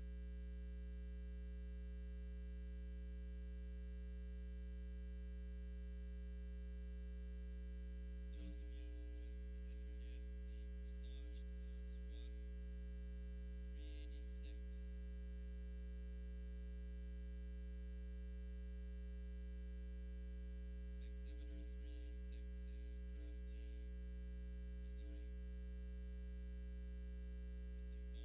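Steady electrical mains hum, with faint distant voices talking now and then.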